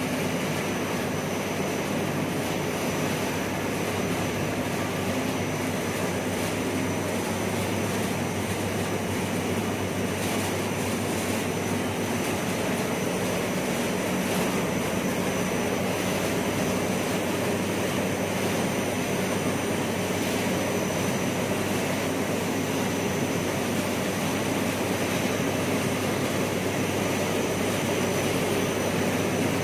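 BOPP film folding machine running steadily: an even mechanical drone with a low hum and a faint steady high whine as the plastic film runs over its rollers.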